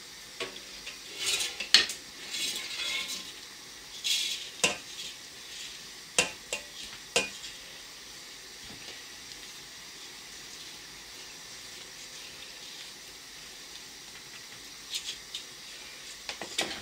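Moistened couscous grains rustling as they are handled and poured into the stainless steel steamer basket of a couscoussier, with several sharp clinks against the metal pot in the first seven seconds. After a quieter stretch, a few light taps come near the end.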